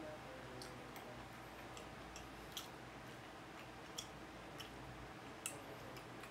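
Faint, sparse clicks, about seven spread irregularly, of wooden chopsticks tapping on a tabletop grill plate and against each other while picking up grilled food, over a low steady hum.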